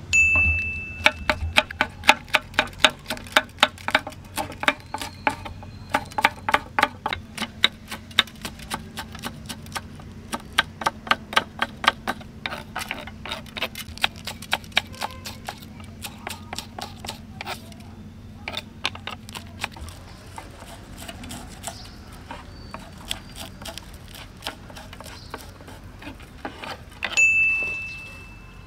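Knife chopping green chillies on a wooden block: a quick run of sharp taps, several a second, thinning out after about twenty seconds. A short chime with a swish sounds at the start and again near the end.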